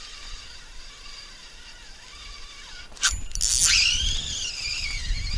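A spinning reel whirring with a wavering pitch, set off by a sharp click about three seconds in, over low handling rumble.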